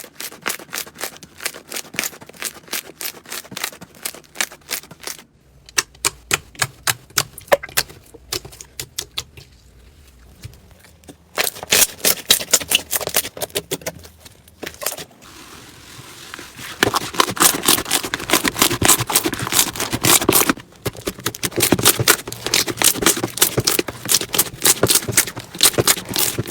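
Slime being squeezed and pressed by hand, giving rapid runs of crackling clicks and pops. It comes in several short spliced clips, and the texture changes abruptly at each cut.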